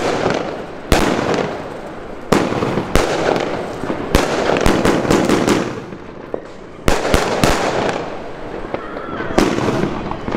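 Fabric Fireworks 'Maximum Force' firework going off: a rapid string of sharp bangs as shots launch and burst, with crackling between them. There is a brief lull about six seconds in before the bangs resume.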